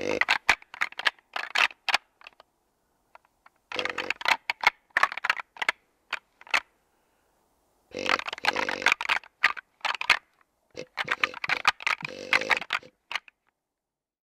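Synthetic rattling antlers clashed and ground together in four bouts of clattering clicks with short pauses between, mimicking two bucks sparring during the rut to draw a buck in.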